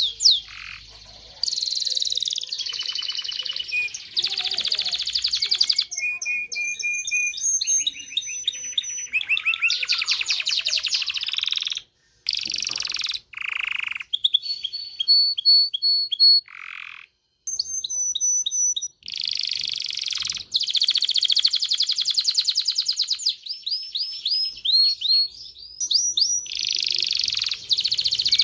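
Canary singing a long, loud song of rapid trills and runs of repeated high notes, changing from one trill to the next every second or two. The song breaks off briefly a few times around the middle.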